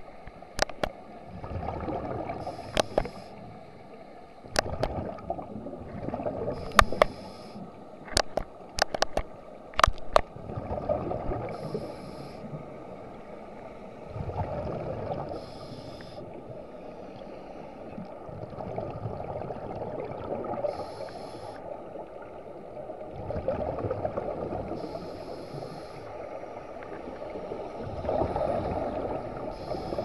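Underwater scuba breathing through a regulator: recurring breaths every four to five seconds with gurgling bubble bursts between them. A series of sharp clicks comes during the first ten seconds.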